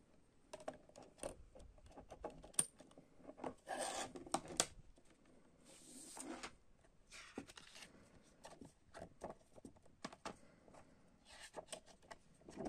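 Hands handling a CD, its clear plastic jewel case and a folded paper poster: scattered sharp plastic clicks and taps, mixed with short bursts of rubbing and paper rustle.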